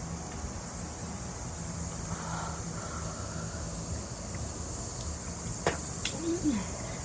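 Steady low background hum and hiss. Near the end come a few faint clicks and a brief low voice sound that falls in pitch.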